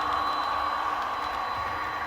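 Model diesel locomotive running, its Soundtraxx Tsunami 2 sound decoder playing diesel engine sound through a small onboard speaker. The sound is steady and fades slowly.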